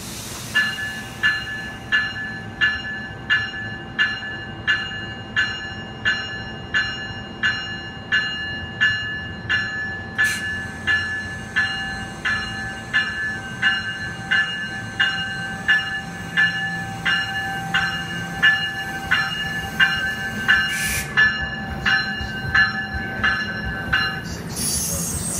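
New Jersey Transit locomotive bell ringing in an even rhythm, about three strokes every two seconds, over a faint steady tone, as the train moves through the station. Two short clicks come in among the strokes. The bell stops near the end, giving way to the rush of the bilevel cars passing close by.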